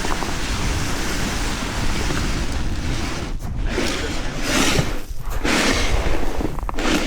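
Strong wind buffeting the microphone: a loud, steady rush with gusts that swell and briefly drop out a few times in the second half.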